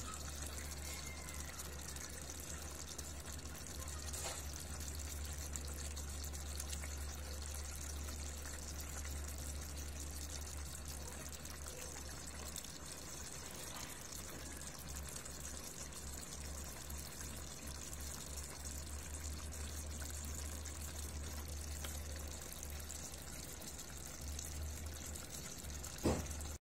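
Pork adobo simmering uncovered in a stainless steel pot, its soy-and-vinegar sauce bubbling steadily, with a steady low hum underneath. A single click near the end.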